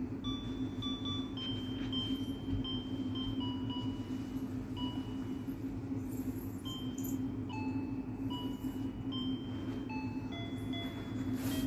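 Background music: a simple melody of short, bell-like chime notes, changing pitch about every half second, over a steady low hum.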